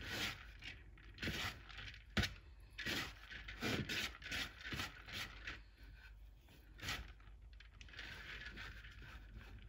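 Hands rubbing and fluffing cooked bulgur grains in a large bowl, working it loose like couscous: irregular soft scraping and rustling strokes, several a second, with a few light clicks.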